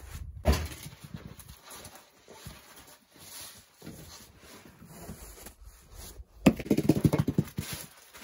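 Log rounds being handled: a single wooden knock about half a second in, then a log round moved over the bark-chip tent floor, making a rough, rattling scrape for about a second and a half near the end.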